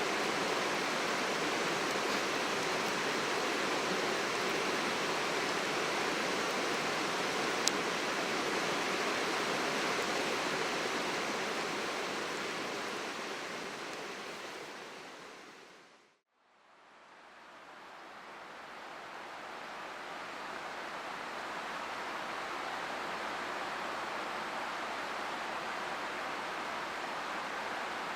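Steady rushing of a river flowing past, fading out to silence about halfway through and fading back in a few seconds later.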